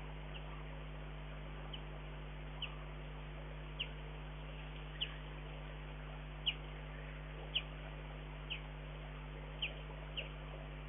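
A small bird giving short, high chirps, each a quick falling note, repeated about once a second at irregular intervals. A steady low electrical hum runs underneath.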